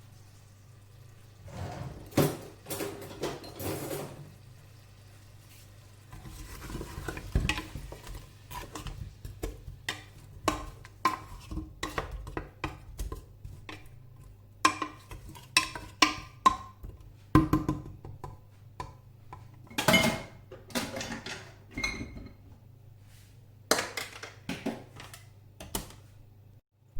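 Metal spoon clattering and scraping against a cooking pot in irregular clacks and knocks while meat and spices are stirred, over a steady low hum.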